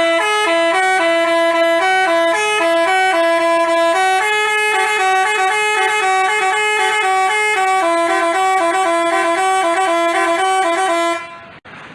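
Bus telolet horn, a Basuri-type multi-tone electric horn, playing a quick tune of short held notes that step between a few pitches, two or more sounding at once. It stops about a second before the end.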